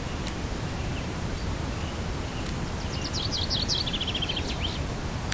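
A small songbird sings one short phrase about three seconds in, quick high notes stepping down into a rapid trill, over a steady low outdoor background rumble.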